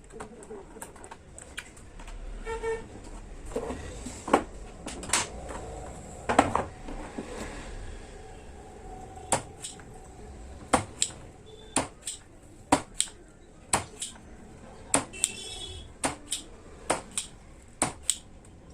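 Sharp clicks and taps of small tools and parts being handled on a workbench, coming about once a second in the second half, with two brief chirps.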